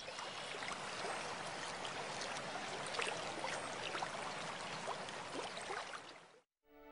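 Fast, shallow mountain stream rushing over rocks: a steady rush with many small splashes on top. It fades out shortly before the end.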